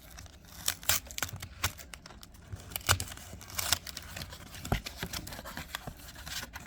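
Foil trading card booster pack being torn open and crinkled, with cards being handled: a string of irregular crackles, rips and small clicks.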